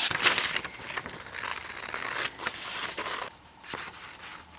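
Scissors cutting through taped-together sheets of printer paper, with the paper rustling and crinkling as it is handled; the rustle is loudest right at the start.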